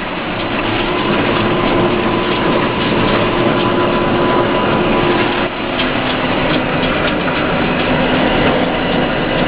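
John Deere 6930 tractor's six-cylinder diesel engine running steadily under ploughing load, heard from inside the cab, with a steady whine over the engine note. About five and a half seconds in, the pitch of its note drops slightly.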